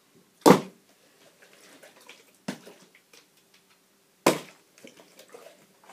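Three knocks of a partly filled plastic water bottle hitting a carpeted floor as it is flipped: one sharp knock about half a second in, the loudest, then two more about two seconds apart.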